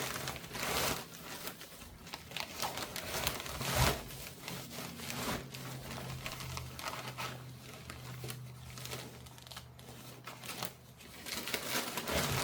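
Plastic packaging crinkling and rustling, with scattered clicks and knocks, as parts of a photography light kit are unwrapped and handled. A faint low hum runs under the middle part.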